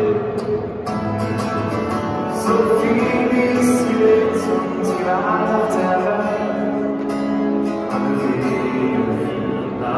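A song with guitar playing over stadium loudspeakers while a large crowd sings along in long held notes.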